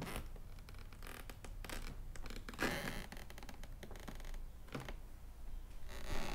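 Soft scraping and rustling handling noises with scattered small clicks, the loudest a brief scrape about two and a half seconds in and another near the end.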